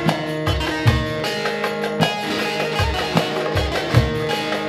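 Electric bağlama (saz) played in a fast, densely strummed instrumental folk passage, over a regular low bass beat from keyboard accompaniment.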